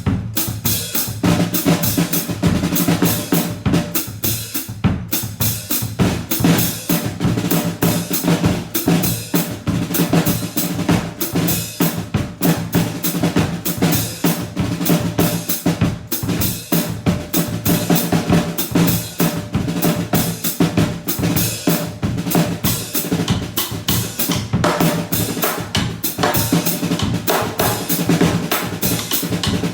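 Acoustic drum kit played continuously: kick, snare and cymbals in a busy, steady groove, with a low drum resonance ringing under the hits. It is heard as the bare room sound, with no close mics or processing.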